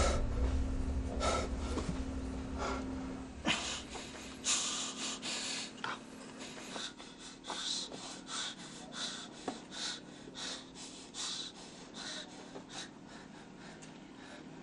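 A low rumble fades out over the first few seconds. Then a person breathes heavily in short, ragged gasps, about two a second.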